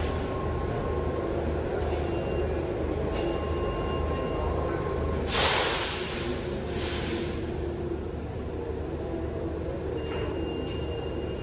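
New York City subway train (R62/R62A cars) at a station: a steady low rumble with faint thin tones, and a loud burst of air hiss about five seconds in, followed by a shorter, weaker one a second later.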